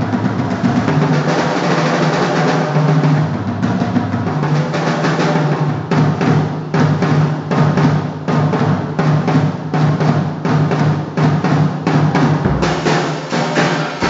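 Drum kit played in rolls on snare and bass drum. The first half is a dense wash, and the second half breaks into quick, even strokes. Underneath is a steady low hum that drops out briefly twice.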